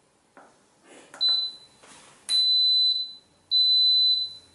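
Instant Pot Duo Mini electric pressure cooker's control panel beeping: a short high beep at a button press about a second in, then two long beeps of the same pitch, the cooker's signal that the pressure-cook program has started.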